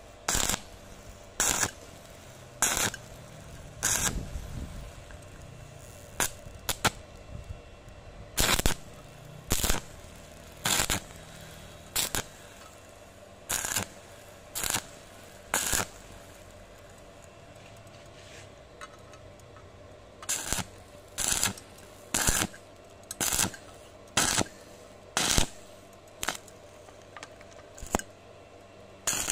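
Stick (arc) welding with a 3.2 mm electrode on 1 mm sheet steel, the arc struck in short crackling bursts about a second apart to build weld across a large hole in the thin sheet. There is a pause of about four seconds midway.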